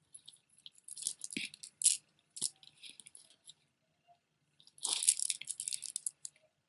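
Beaded jewelry clicking and rattling as it is handled. The clicks come in two clusters, one about a second in and a denser one about five seconds in.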